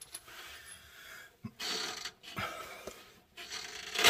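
Clicks, clinks and scraping of metal parts and hand tools being handled, in short bursts with a few sharp clicks, while a front air-bag mount is being bolted in.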